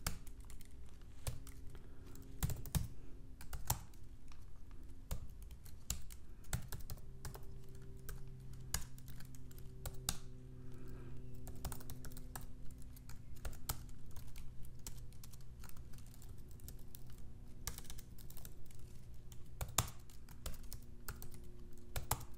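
Typing on a computer keyboard: irregular runs of key clicks while code is entered, over a faint steady low hum.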